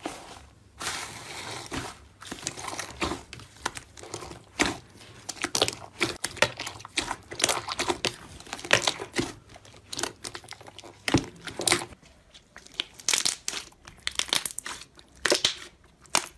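Slime being squeezed, poked and stretched by hand, giving a dense run of irregular crackling, popping and crinkling snaps.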